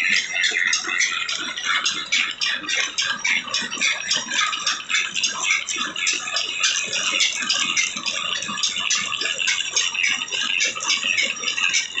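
Drill press boring through steel angle iron with a twist drill bit: a steady, rhythmic ticking chatter at about five beats a second as the bit cuts.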